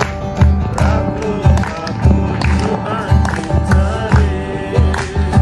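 Background music: a song with a steady beat, about two a second, and a singing voice over it.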